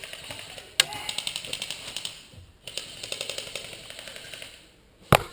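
G&G M14 EBR airsoft electric rifle firing two full-auto bursts of rapid, evenly spaced shots, each over a second long. One loud sharp knock comes near the end.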